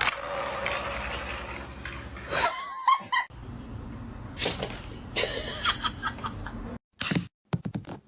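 A pet dog making odd vocal noises, its pitch sliding up and down, with people laughing, in several short clips cut one after another.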